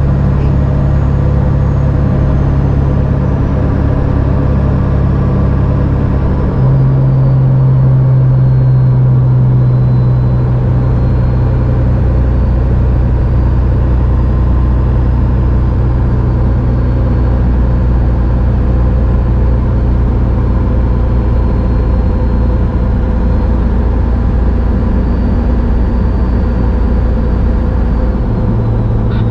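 Engine drone and road noise of a 2000 Ford F350's 7.3L turbo diesel cruising at highway speed, heard from inside the cab. The low drone shifts abruptly about six and a half seconds in and again near the end.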